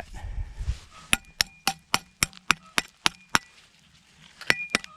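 Metal clinking against metal, a quick run of sharp knocks at about three or four a second, each with a short ringing tone. A few more knocks come near the end. It comes as a rusty piece of scrap metal is being dug out and handled.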